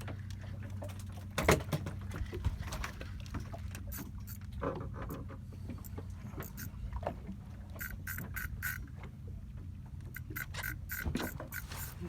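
Boat engine running steadily with a low hum, with scattered clicks and knocks of gear on board, thickening into a run of sharp clicks near the end.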